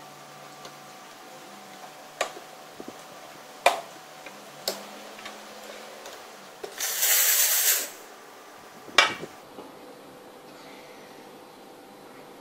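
Gaggia espresso machine's steam wand purged in one short hiss of steam lasting about a second, clearing milk from the wand after frothing. A few sharp knocks and clicks come before and after it.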